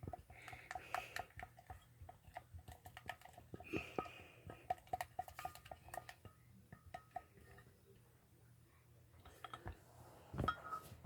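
A spoon or utensil clicking and tapping against a bowl while stirring a toothpaste slime mixture, with a louder knock about ten seconds in.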